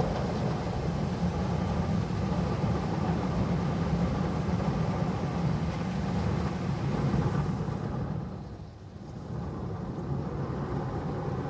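Automatic car wash machine running over the car, heard from inside the cabin: a steady low rumble with a hiss above it. It dips briefly about nine seconds in, picks up again, and stops suddenly at the end.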